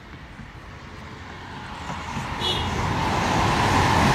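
A road vehicle approaching and passing close by, its engine and tyre noise swelling over a few seconds and loudest near the end.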